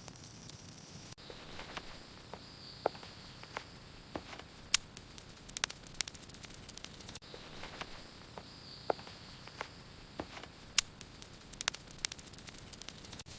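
Egg frying in hot oil: a faint steady sizzle with irregular sharp pops and crackles of spitting fat.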